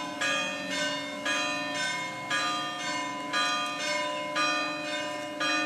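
Church bells ringing, a new stroke about once a second at changing pitches, each tone ringing on into the next.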